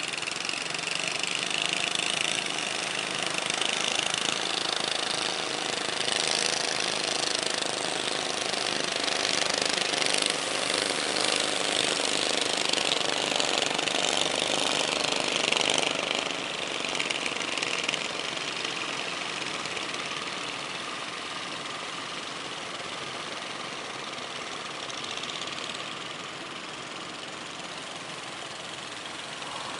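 Engines of several motorised outrigger fishing boats running as they come in through the surf, mixed with the wash of breaking waves. The sound is loudest for the first fifteen seconds or so and eases off after about eighteen seconds.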